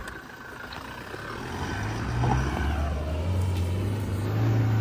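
Toyota Fortuner Legender's 2.8-litre four-cylinder diesel engine revving hard as the SUV accelerates across loose sand into a steep dirt hill climb. The engine note climbs in pitch and grows louder over the second half.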